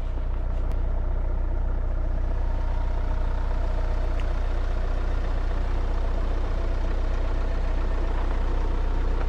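A van driving along a road, its engine and road noise making a steady low rumble.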